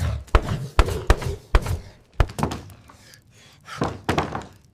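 A door being banged on by a capybara: a racket of about six uneven, hard thuds, most of them in the first half.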